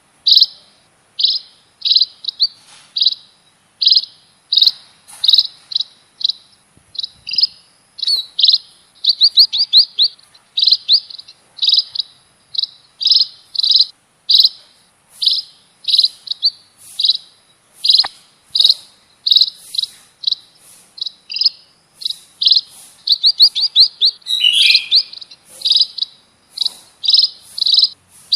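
Burung pipit, a small finch-like songbird, chirping: short, high chirps repeated about once or twice a second, broken by a few quick runs of rapid notes.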